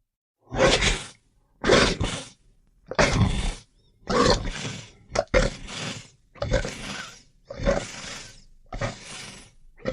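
Werewolf snarl sound effect: a run of short, harsh growling snarls, about one a second, with brief silent gaps between them.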